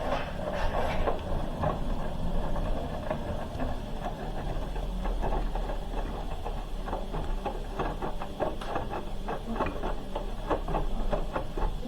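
Hoover H-Wash 300 Plus washing machine during its wash cycle: the drum turning the load, with a steady low hum and irregular soft sloshing and tumbling of the wet laundry. It is quiet because the water level in the drum is low.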